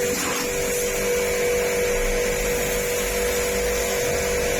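Electric high-pressure washer running steadily while its jet washes dirt off a balcony floor: the motor and pump give a constant hum with an even pitch over the hiss of the water spray.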